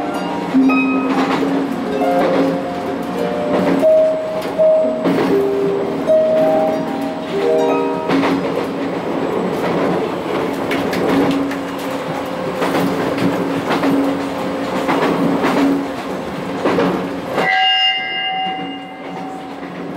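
Irish lever harp played inside a moving train carriage. A plucked melody of single ringing notes comes first, then denser playing over the train's running noise and rail clatter. Near the end a short high ringing tone sounds briefly.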